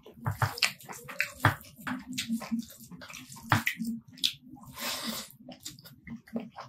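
Close-up wet eating sounds: a hand squishing basmati rice into curry gravy, then lip smacks and chewing as a handful goes into the mouth. A run of short wet clicks and smacks, with one longer noisy sound about five seconds in.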